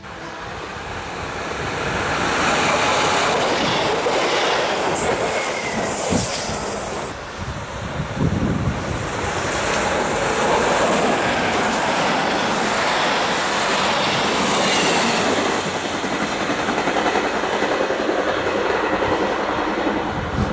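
SBB regional electric train passing close by at speed, the loud, steady noise of its wheels running on the rails building over the first couple of seconds and then holding.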